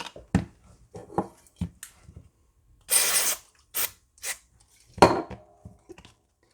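Irregular taps and clicks from a Nintendo 3DS being handled and pressed as it is tried out, with a short hissing burst about three seconds in and a sharper knock about five seconds in.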